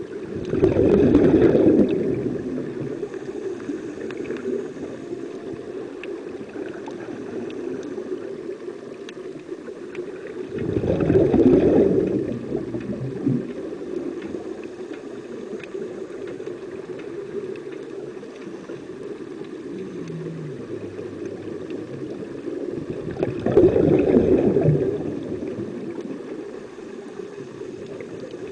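Scuba regulator exhaust bubbles gurgling out underwater three times, roughly eleven seconds apart, each for a second or two, over a steady hum.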